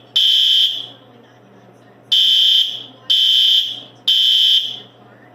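System Sensor SpectrAlert Advance P2R fire alarm horns sounding in synced code 3 (temporal-three) pattern. One blast ends a cycle, then comes a pause of about a second and a half, then a full set of three high-pitched half-second blasts about a second apart.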